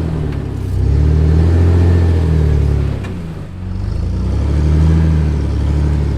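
Jeep engine revving in two long swells, pitch climbing and falling back each time as it crawls over rock under load.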